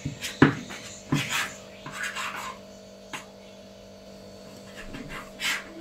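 Kitchen knife slicing through a roll of bread dough and knocking on the countertop: a few sharp taps with soft scraping between them, over a steady low hum.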